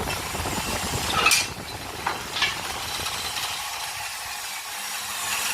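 Workshop clatter with sharp metal clinks, then the steady hum of a power tool's motor starting about five seconds in.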